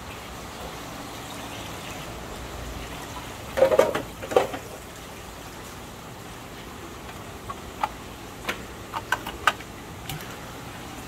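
Steady bubbling and trickling water from aquariums, with a loud cluster of knocks about four seconds in and several sharp clicks later on.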